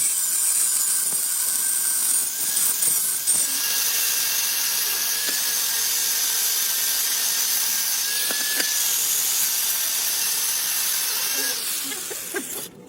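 A power tool running steadily under load, a high hiss with faint whining tones, starting abruptly and cutting off just before the end.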